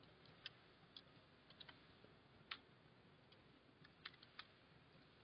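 Faint, sparse keystrokes on a computer keyboard: a few scattered clicks over near silence.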